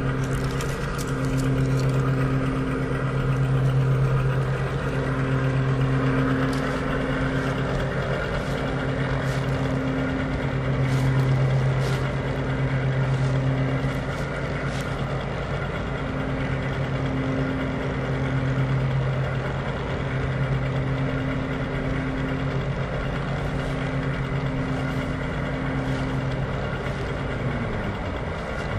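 G scale model train running on outdoor track, heard from on board: a steady mechanical hum that swells and fades every second or two, with scattered sharp clicks of the wheels on the rails. Near the end the hum briefly drops in pitch.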